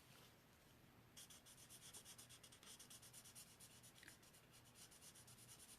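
Marker tip rubbing on paper in quick repeated strokes, faint and scratchy, as a light marker is worked over darker shading to blend it in. The strokes start about a second in.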